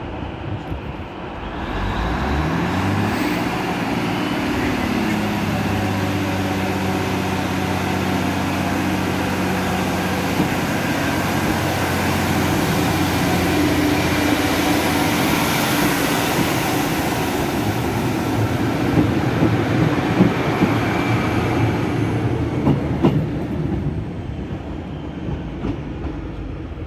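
Class 153 diesel railcar's Cummins engine revving up about two seconds in as the unit pulls away, then running steadily under power as it passes close by. A few wheel clicks over rail joints come near the end as it draws away and fades.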